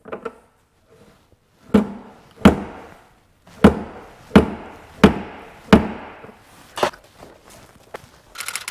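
Slide hammer pulling a hot-glue tab on a car's steel quarter panel to draw out a dent: seven sharp metallic knocks as the weight is thrown against its stop, roughly one every 0.7 s with a short pause after the second. A fast, even rattling starts near the end.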